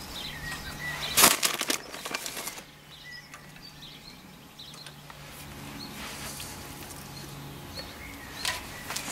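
A short burst of metallic clattering about a second in, as a steel rod is fixed upright in the centre of a stainless steel pan. Small birds chirp now and then, over a faint steady low hum.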